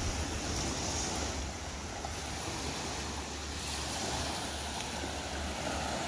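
Small waves washing up on a pebble beach, a steady surf noise, with a low rumble of wind on the microphone.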